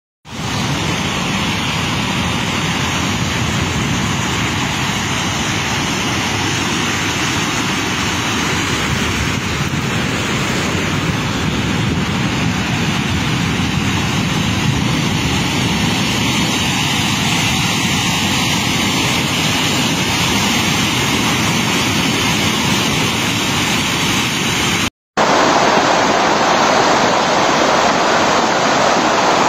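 Muddy floodwater from a river in spate rushing steadily over the ground and across a road. A brief break about 25 seconds in leads into a second, louder stretch of rushing water.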